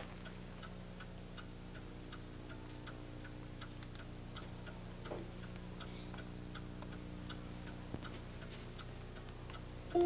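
Clock ticking steadily over a low, steady hum.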